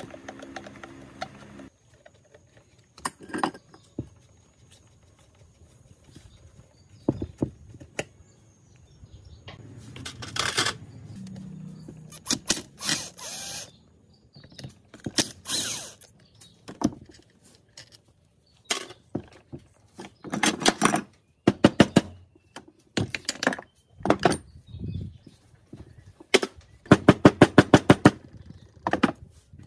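Intermittent workshop hand-tool noises: scattered knocks and short scraping bursts, with a fast even run of clicks near the end.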